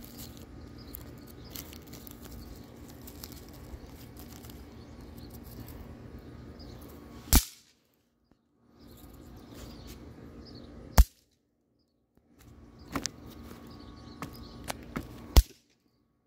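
Snap pops (bang snaps) going off one at a time on hard ground: three loud sharp cracks about seven, eleven and fifteen seconds in, with a few fainter pops just before the last. The sound cuts out for a second or so right after each of the first two cracks.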